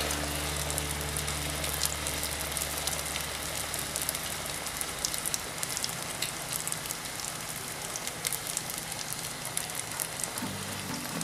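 Flatbread dough frying in hot vegetable oil in a pan: a steady sizzle with many small pops and crackles from the oil.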